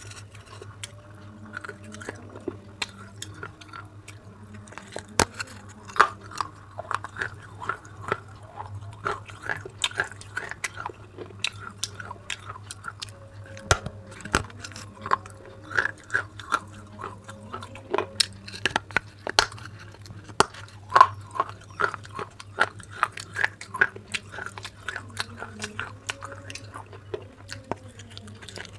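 Biting and chewing pieces of baked clay pot: a long run of sharp, crisp crunches, several a second at times, with softer chewing between.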